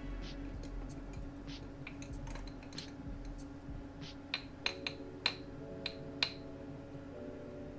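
A metal tool clinking against the inside of a glass jar while stirring a hot caustic soda paint-stripping bath, with scattered sharp clinks and a quick run of louder ones about four to six seconds in, some ringing briefly.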